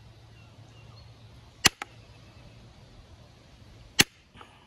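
Antler billet striking a copper-tipped punch set on a chert scraper's edge, indirect percussion flaking: two sharp knocks about two and a half seconds apart, each followed by a lighter tick.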